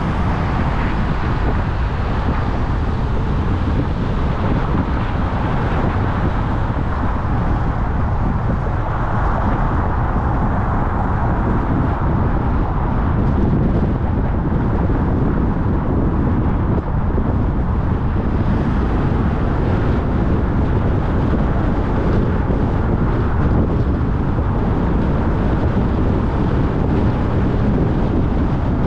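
Car driving on city streets: steady tyre and road noise with engine sound, swelling a little now and then.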